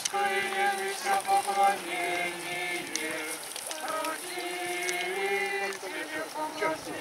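Voices singing a slow Orthodox liturgical chant in long, held notes that step from one pitch to the next.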